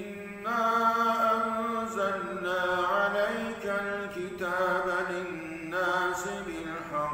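A man reciting the Quran in Arabic in melodic chanted style (tilawah), holding long, wavering notes with brief breaks for breath, trailing off near the end.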